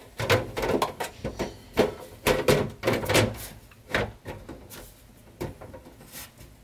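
Clicks, knocks and scrapes of a VGA monitor cable's plug and its white adapter being pushed into a port at the back of a desktop PC case, plastic and metal rattling against the case. The sounds come thick for about four seconds and then thin out to a few faint taps.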